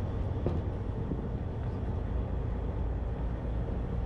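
Tour boat's engines running with a steady low drone, heard from the open deck as the boat gets under way.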